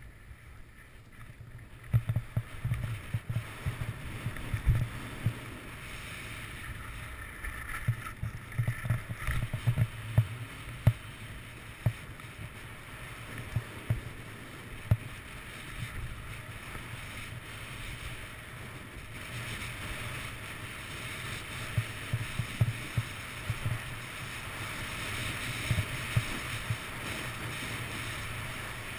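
Skis sliding and scraping over packed snow, with wind rushing over a GoPro action camera. Frequent small knocks and thumps come from the ride, and the rush grows louder in the last third as the skier picks up speed.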